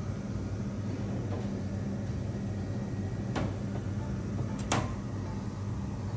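A steady low hum with two sharp clicks a little over a second apart, about halfway through; the second click is louder.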